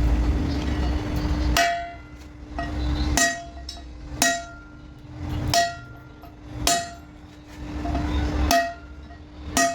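Hammer blows on a metal part, about seven strikes spaced a second or so apart, each giving a short metallic ring. A steady machine hum runs underneath, with swells of low rumble between the blows.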